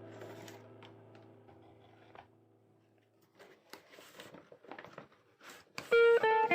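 Soft background music fading out, followed by a few seconds of faint scattered clicks and taps, then plucked guitar music coming in loudly near the end.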